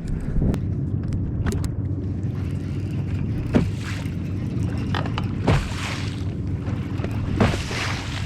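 Water from boat wakes slapping against a bass boat's hull about every two seconds, over a steady low rumble.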